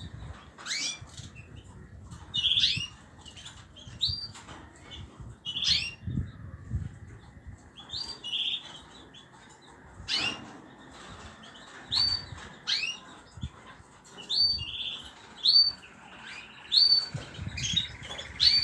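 Small pet cage birds chirping: short, high, rising calls repeated every second or so, some overlapping, with a few soft low rumbles of movement underneath.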